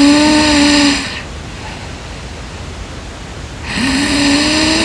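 A woman snoring in her sleep, as recorded by a sleep-tracking app: two long snores about four seconds apart, each with a steady droning pitch, over a steady hiss.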